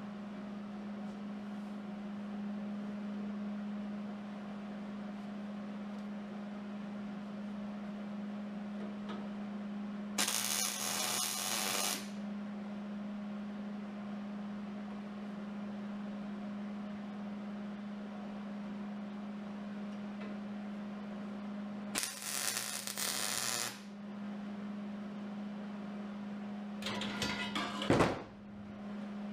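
MIG welder (Hobart 210 MVP) laying tack welds on steel: two welds of about two seconds each, about ten seconds in and again a little after twenty seconds, over a steady hum. Near the end comes a shorter burst of welding, ending in a sharp snap as a locking welding clamp is released.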